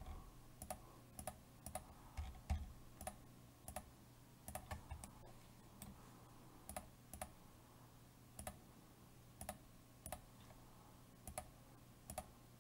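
Faint, irregular clicking of a computer mouse, about two clicks a second, over a low steady hum.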